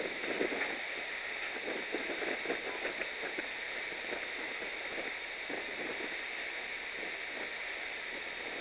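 Navy fast attack boat underway at speed: a steady rushing noise with short irregular crackles, most of them in the first three seconds.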